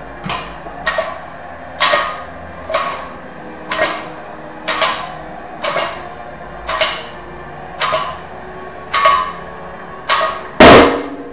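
Iron barbell plates clanking about once a second as a loaded bar is rowed from the concrete floor and brought back down, rep after rep. Near the end comes one much louder clang as the bar is set down.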